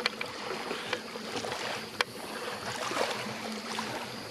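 Shallow water splashing and lapping around a person's legs as she wades over a pebble bottom, with a few sharp clicks, the clearest about two seconds in.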